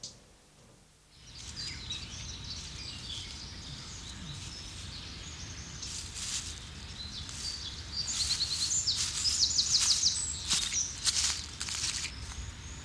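Small birds chirping and singing over a steady low outdoor rumble, with a fast trill about eight seconds in. Several short, sharp rustles come in the second half.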